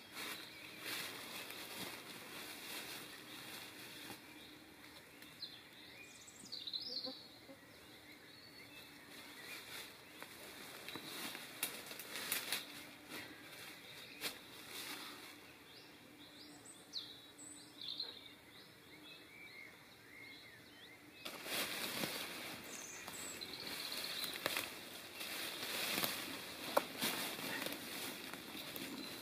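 Rustling and crackling of dry leaves, ivy and twigs as a person crawls and shifts about on the forest floor, with a few short bird chirps in between. The rustling gets louder about three-quarters of the way through.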